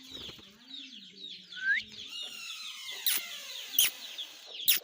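Birds chirping and twittering, with a low wavering call through the first two seconds, a single rising chirp, and a few sharp clicks in the second half.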